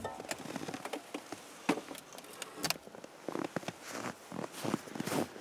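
Snow-covered Peugeot 205 bonnet being unlatched and raised: a few sharp clicks of the catch and bonnet, then a run of short rustling scrapes.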